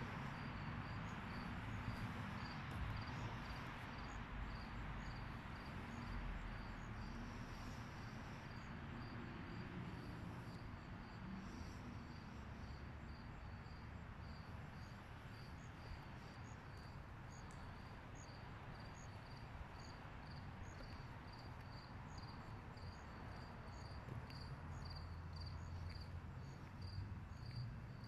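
Crickets chirping, a faint, regular high chirp about twice a second, over a steady outdoor hiss.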